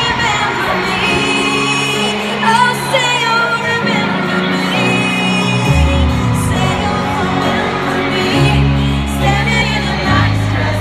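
A pop song: a woman singing lead into a microphone over a band with a steady bass line.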